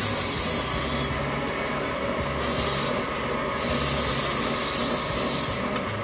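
Belt grinder running with a steady motor hum while a small sheet-metal patch piece is pressed against the belt. There are three spells of harsh grinding hiss: one through the first second, a short one about two and a half seconds in, and a longer one from about three and a half seconds to near the end.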